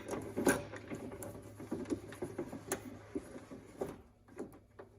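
Irregular light clicks and knocks from hands working a truck door's newly fitted lock and latch, over a faint steady low hum.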